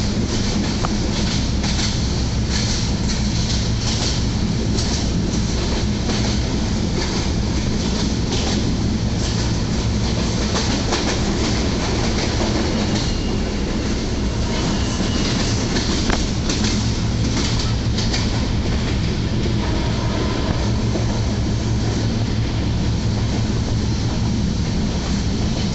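Passenger train carriage running at speed, heard from inside: a steady low rumble with the wheels clacking over rail joints, the clacks coming in clusters in the first third and again about two-thirds through.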